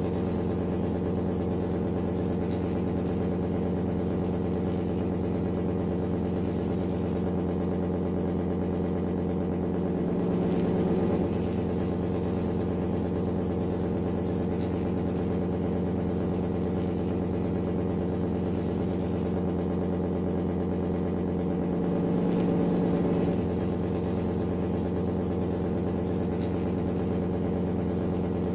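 Steady idling engine sound, a low even hum that swells slightly twice, about ten and twenty-two seconds in.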